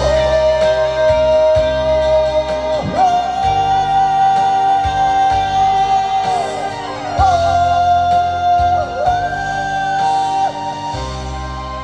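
Trot song playing loudly: a lead melody of long held notes with slides between them, over a bass line and a steady beat.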